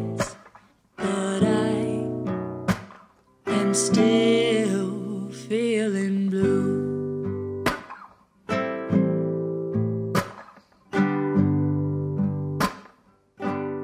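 Background music: a slow song on acoustic guitar, with chords struck and left to ring out every second or two.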